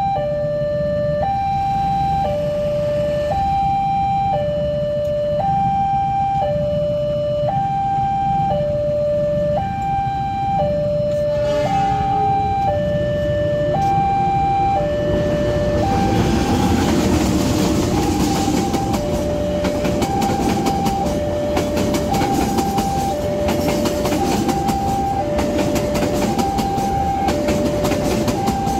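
Railway level-crossing electronic warning bell sounding a two-tone alternating chime that switches pitch about once a second. From about halfway through, the noise of a locomotive-hauled passenger train builds under it as the coaches run over the crossing.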